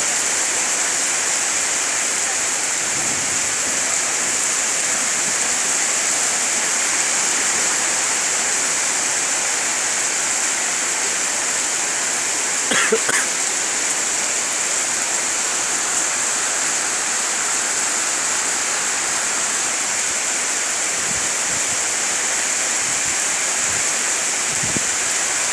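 Heavy rain pouring down in a steady hiss. About halfway through, a brief pitched sound cuts in over it for under a second.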